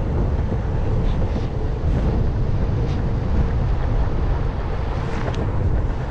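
Steady wind buffeting the microphone during an electric skateboard ride, over the rumble of the board's 4-inch rubber wheels rolling on cracked asphalt.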